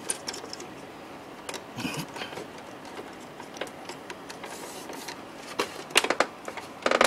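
Parts of an IBM ProPrinter III dot-matrix printer's open carriage mechanism handled by hand: scattered light plastic-and-metal clicks and rattles, with a few sharper knocks about six seconds in and near the end.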